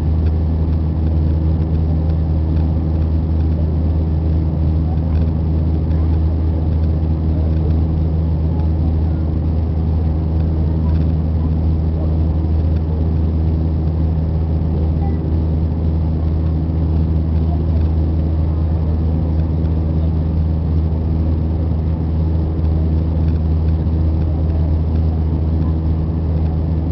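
Steady drone of an Airbus A320's jet engines and airflow heard inside the passenger cabin, with a low, even hum underneath.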